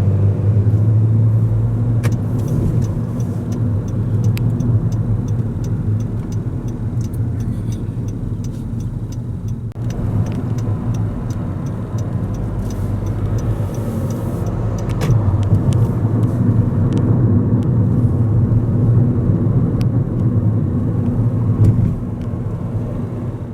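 Steady low rumble of a moving vehicle heard from inside it, with faint regular ticking in parts.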